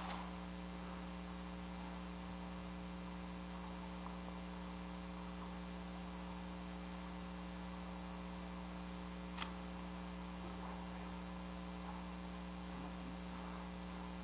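Steady electrical hum with faint room tone in a quiet hall. A single short click comes about nine seconds in.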